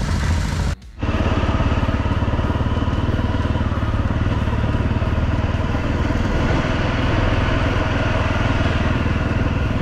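Motorcycle engine running steadily while riding, cut off briefly for a moment about a second in before resuming.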